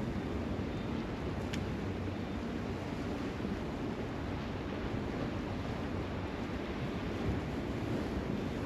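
Steady wind buffeting the microphone over the wash of waves on the shore, with one faint click about a second and a half in.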